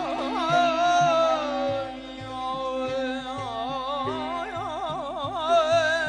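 Middle Eastern-style music: a heavily ornamented, wavering melody over a steady low beat.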